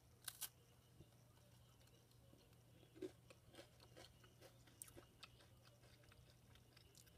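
Faint crunching of a person biting into and chewing an MRE vegetable cracker spread with jalapeño cheese: a crisp double crunch about half a second in, then scattered soft crunches of chewing.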